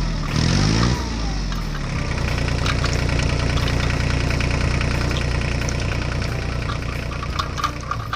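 Tractor engine running steadily, with its pitch rising and falling briefly about a second in.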